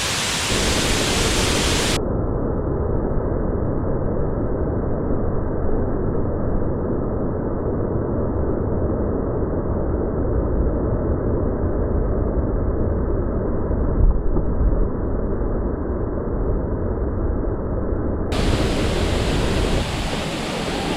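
Steady rush of spring water flowing over an old pipe, with wind buffeting the microphone as a low, uneven rumble. The sound turns muffled from about two seconds in until near the end, then clears again.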